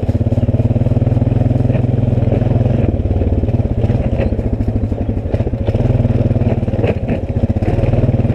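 ATV engine running steadily under the rider, dipping briefly a few times as the throttle eases, with a few sharp knocks and rattles over the rough trail.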